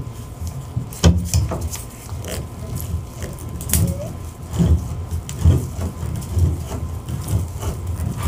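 Channel-lock pliers gripping and turning a threaded tub-spout pipe extension into its fitting in the wall, giving irregular clicks and knocks with low thuds as the jaws bite and regrip. The sharpest click comes about a second in.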